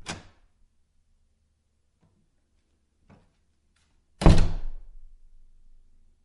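Old wooden door: a knock as it shuts right at the start, a small click about three seconds in, then a loud slam a little after four seconds that dies away over about two seconds.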